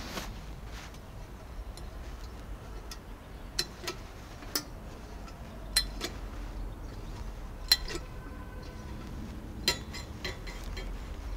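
Cut-out steel door of a homemade gas-bottle stove being swung open and shut on its bolted metal hinges. It gives scattered sharp metallic clinks and clicks, the loudest a little over halfway through.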